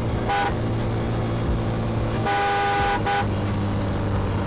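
A motorcycle running at a steady speed on the road, with a vehicle horn sounding three times: a short toot, a longer toot of under a second about two seconds in, and a brief one right after it.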